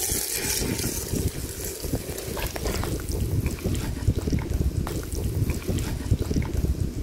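Wet squelching and small splashes as marinated chicken pieces are scooped by hand and dropped into a clay pot of coconut milk. Wind rumbles on the microphone throughout.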